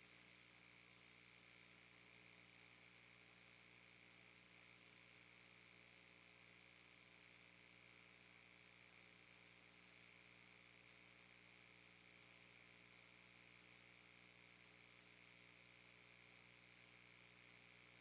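Near silence: a faint, steady hum and hiss, with nothing else happening.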